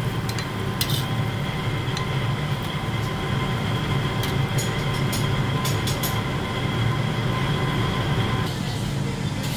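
Steady low roar of a wok's gas burner with a faint steady whine above it, and a few sharp clicks of a metal spatula against the wok and the bowl as fried rice is packed into the bowl.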